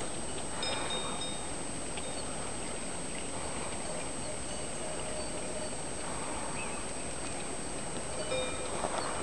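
Steady outdoor background noise with faint, brief high ringing tones here and there, and a few light clicks near the end.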